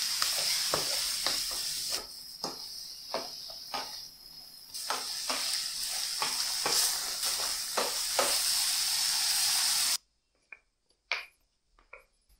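Diced mango and sugar sizzling in a ceramic-lined frying pan while a spatula stirs and scrapes through it, with frequent knocks of the spatula against the pan; the sizzle eases for a couple of seconds in the middle. About ten seconds in it cuts off suddenly to near quiet, with a few soft knocks of a rolling pin on a wooden board.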